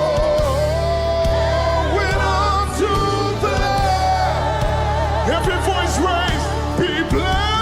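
Live worship music: singers holding and bending notes with vibrato over a band's steady bass.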